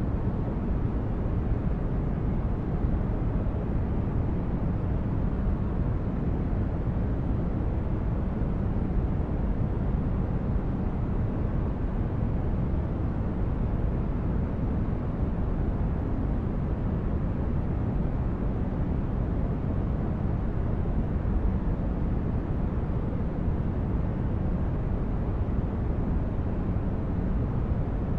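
White noise track: a steady, unchanging deep rushing noise, heaviest in the low end with little hiss on top.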